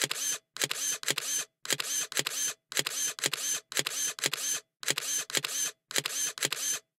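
Camera shutter clicking over and over in quick bursts of a few clicks each, about one burst a second.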